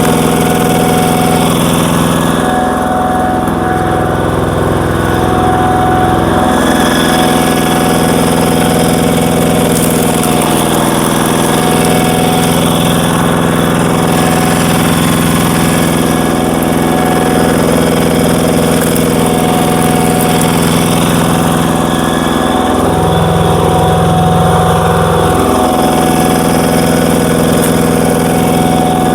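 Walking tractor's engine running steadily, turning a screw log splitter. Twice, about three seconds in and again near the end, its note changes for a few seconds.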